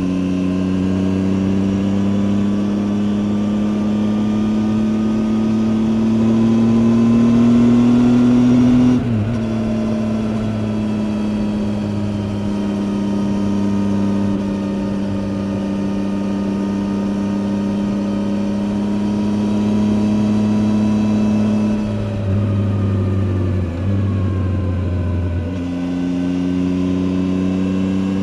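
Triumph Tiger 800 XCA's three-cylinder engine running under the rider, heard over wind rush. The revs climb slowly, drop suddenly about nine seconds in and then hold steady. Around three-quarters of the way through the note falls and goes rough for a few seconds before it picks up steady again.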